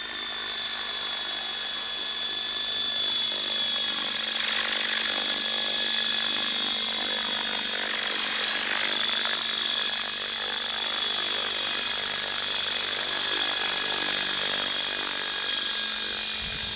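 Radio-controlled model helicopter in flight: a steady, high-pitched whine of its motor and rotors, growing louder a few seconds in as it comes closer.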